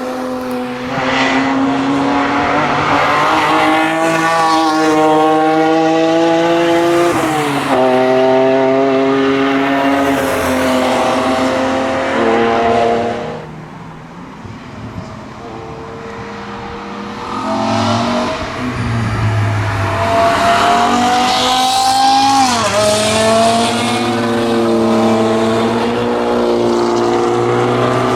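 BMW E46 M3 track cars accelerating hard past at full throttle. The engine note climbs and drops sharply at each upshift, with one pass, a brief lull, then another car coming through.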